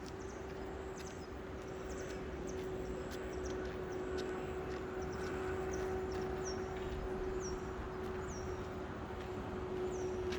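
A small motor running with a steady hum over a low rumble, while a bird gives a series of short chirps that fall in pitch.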